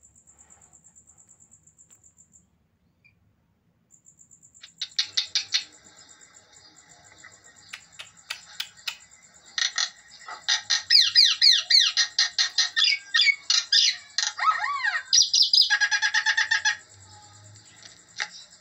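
A bird chirping in rapid runs of calls with falling whistled sweeps. It starts about four and a half seconds in and is busiest near the end, over a steady high pulsing trill that drops out briefly about two seconds in.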